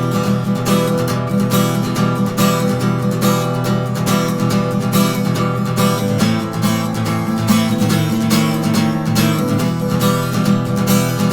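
Acoustic guitar strummed steadily in the gallop pattern (fast down-up-down triplets), moving between the song's two verse chords, E minor and A minor.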